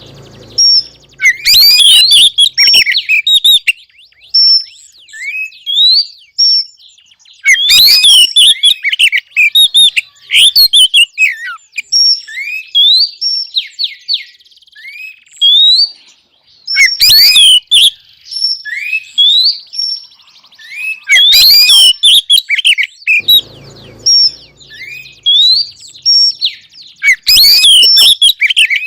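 Oriental magpie-robin (kacer) calling: five loud bursts of rapid chattering, sliding notes, with softer single whistles in between. The uploader takes this for a female's call to males.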